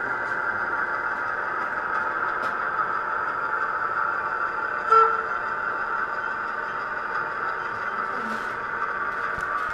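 Diesel engine sound from a sound-fitted O gauge model Class 08 shunter running steadily as it moves slowly, with exhibition-hall background noise. A short, sharp tone sounds about five seconds in.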